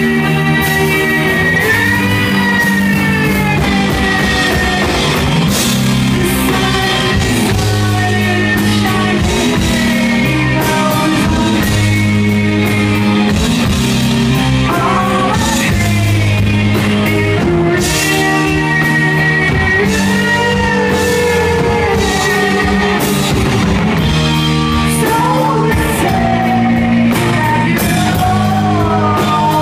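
Live rock band playing: electric guitars and a drum kit with cymbals, and a woman's voice singing over them.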